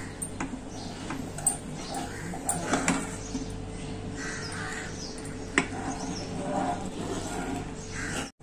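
A metal spoon stirring a thick, reduced-milk kulfi mixture in a pan, with occasional sharp clinks against the pan over a steady low hum. A bird caws a few times in the background.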